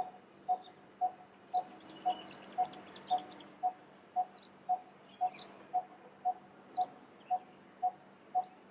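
Birds calling: one bird repeats a short, low, even note very regularly, about twice a second, while other birds give higher chirps over it, including a fast run of chirps about two to three seconds in.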